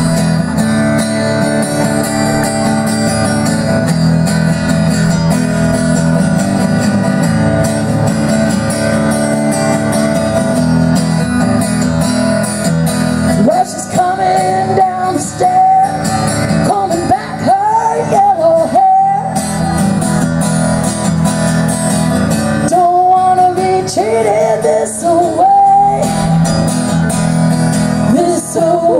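Acoustic guitar strummed in a steady rhythm, alone for the first half. A woman's singing voice enters about halfway and carries a melody over the guitar in phrases with short breaks.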